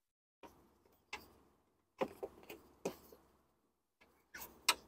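A new panel air filter being pushed into a plastic engine airbox: a run of short knocks and scrapes as its frame rubs and taps against the box, about eight in all, with the sharpest pair near the end.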